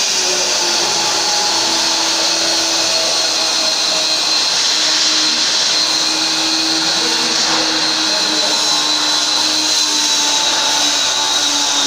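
MIG/MAG welding arc, a steady hiss with a faint high whine and a low hum running through it.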